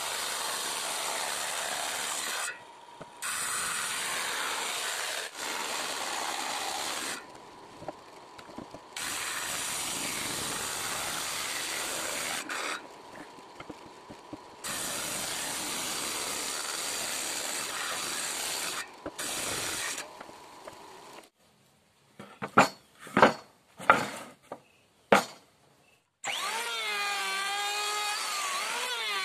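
Homemade table saw with a circular blade ripping a wooden board: long cutting passes broken by short quieter gaps. Then a few sharp loud knocks, and near the end an electric hand planer shaving a wooden beam, its whine wavering up and down in pitch.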